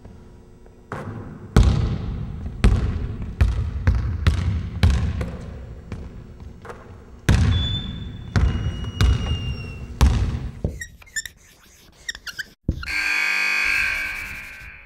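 A basketball bouncing on a hardwood gym floor as it is dribbled and shot, about a dozen irregular bounces, each echoing in the hall, with a couple of brief sneaker squeaks. Near the end the bouncing stops and a steady tone sounds for under two seconds.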